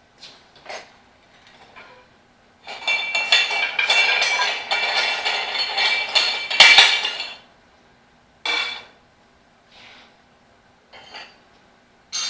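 Steel tire-mounting bar clanking and scraping against a steel tractor wheel rim while the tire bead is levered on, with a dense run of clattering metal that rings, followed by four separate knocks.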